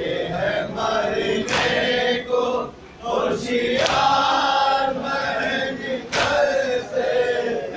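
A crowd of men chanting a Muharram nauha together in unison, with sharp slaps of hands on chests (matam) cutting through every second or two. There is a brief drop in the chanting about three seconds in.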